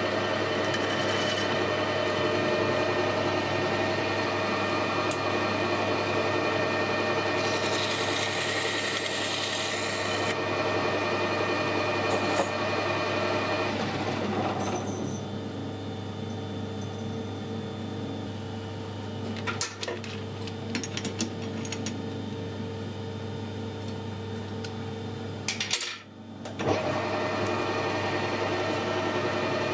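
Metal lathe running with a steady whine from its gearing as a cutting tool faces off the end of a spinning stainless steel tube; the rough cutting noise eases about halfway through, leaving the lathe running on with a few light clicks. The sound drops out for a moment near the end.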